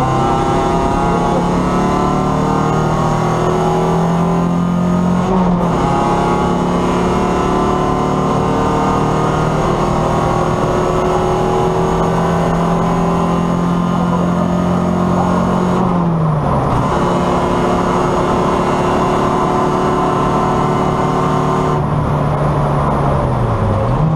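Competition car's engine, heard from inside the caged cabin, running hard at high revs. Its pitch climbs slowly and dips briefly about five seconds in, again around sixteen seconds, and at the very end.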